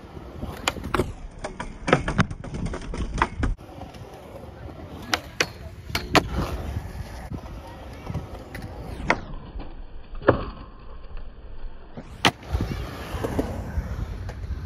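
Skateboard wheels rolling on concrete, broken by repeated sharp clacks of the board striking the ground and the rail.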